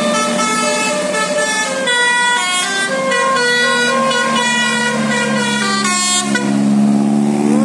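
A bus's basuri telolet horn, a multi-tone air horn, plays a quick melody of short pitched notes over a steady low drone. There is a brief break about six seconds in.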